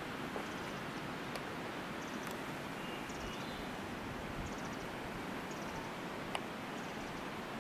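Steady outdoor background hiss, with a faint high chirping repeated about once a second and a few soft clicks.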